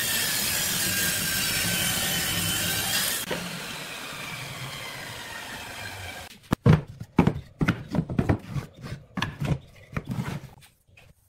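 Table saw cutting through a glued-up wooden block; the cut ends about three seconds in and the saw's sound dies away. From about six seconds come a string of sharp wooden knocks and clacks as cut blocks and boards are handled and set down on the bench.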